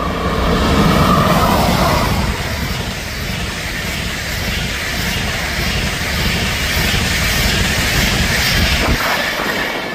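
DB class 101 electric locomotive and its SBB EuroCity coaches passing close by, wheels running on the rails. Loudest as the locomotive goes by about a second in, then the steady rumble of the coaches, falling away near the end as the last coach passes.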